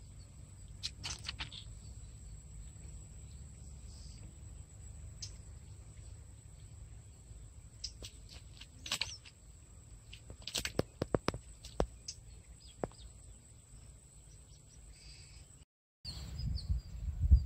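Outdoor ambience: birds chirping now and then over a steady low rumble of wind on the microphone, with a faint steady high whine throughout. Near the end the low rumble gets much louder.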